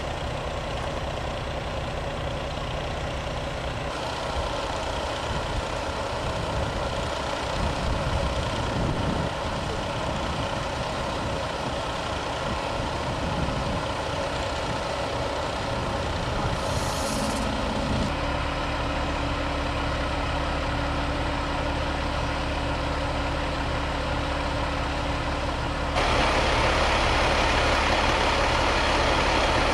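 Fire engine's diesel engine idling steadily, with a short hiss of air about two-thirds of the way through. The running gets louder and fuller near the end.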